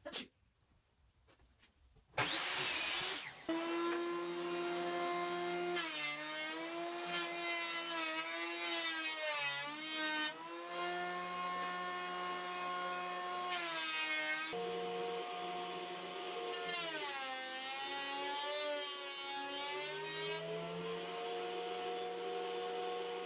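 A handheld electric power tool working the rusted-in parts out of an old bench. It starts about two seconds in, and the motor's pitch rises and falls every few seconds as it works.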